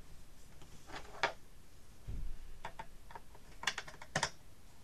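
Small steel wrench clicking against nuts and machine screws while tightening them down on a nichrome igniter wire inside a PVC end cap: scattered sharp metal clicks, with a soft low thump about two seconds in.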